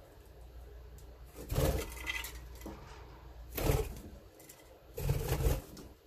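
Budgerigar's wings fluttering and its feet scrabbling as it flies in and lands on a wooden nest box, in three short bursts, the last one the longest.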